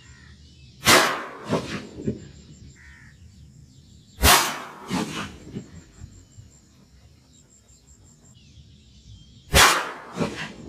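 Three gunshots a few seconds apart, each a sharp crack followed by a short trail of echoes.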